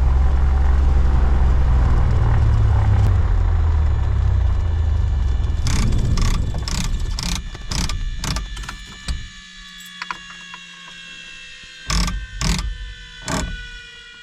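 Cessna 182's piston engine running at idle, then fading and stopping about nine seconds in. Several sharp clicks and knocks follow over a faint steady whine.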